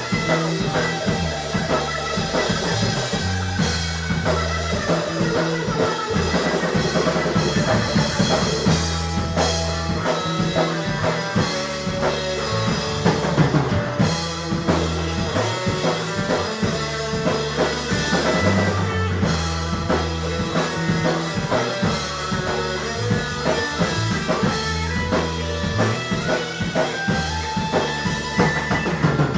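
Live rock band playing: electric guitar over a drum kit, with a heavy bass line and steady drum hits.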